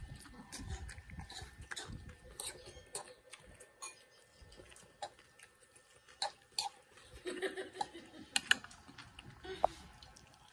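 A metal fork clicking and clinking against a bowl while someone eats salad: scattered light clicks, with a few sharper ones near the end.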